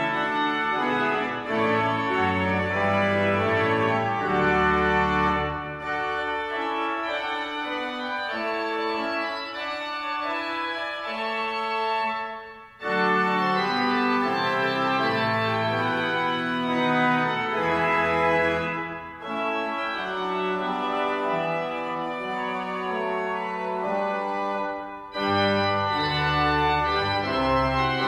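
Church pipe organ playing sustained chords over a pedal bass line. The phrases are separated by brief breaks, the clearest about halfway through and another a few seconds before the end.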